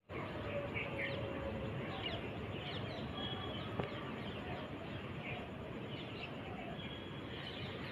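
Outdoor ambience: a steady background hiss with faint bird chirps scattered through it, and a single faint tick just before the middle.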